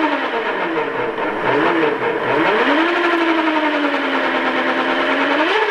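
AC50 electric motor spinning a Mercury outboard lower unit and its propeller in air, running through bevel gears whose backlash is not yet adjusted. Its whine falls, rises again, holds steady for about two seconds, then climbs sharply near the end.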